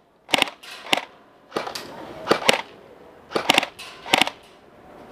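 Airsoft guns firing, a string of sharp snapping shots, single and in quick pairs, irregularly spaced.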